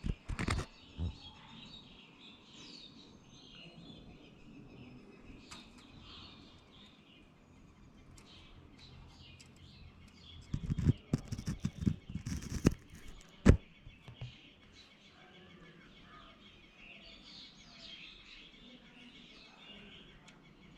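Birds chirping faintly on and off in the background. A quick run of loud knocks and thumps comes past the middle, with two more right at the start.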